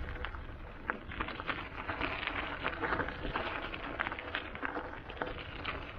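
Knobby tyres of a Santa Cruz e-mountain bike rolling over loose gravel: a steady crunch with a constant scatter of irregular small clicks and rattles.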